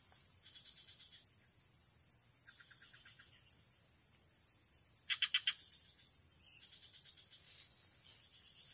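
Frogs and insects calling: a steady high insect drone, with short runs of rapid pulsed notes every couple of seconds; the loudest is a run of four quick notes about five seconds in.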